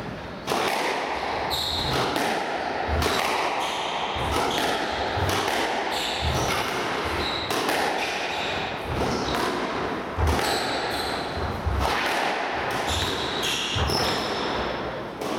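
Squash rally: the ball cracked by racquets and hitting the walls over and over, with shoes squeaking on the wooden court floor between shots.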